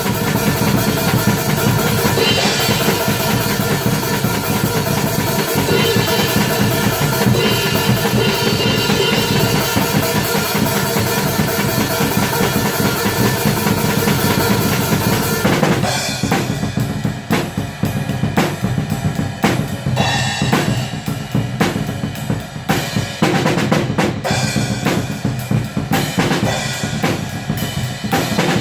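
Atmospheric black metal music: a dense, full-band wall of sound with drums that, a little past halfway, thins to a sparser passage carried by distinct drum hits.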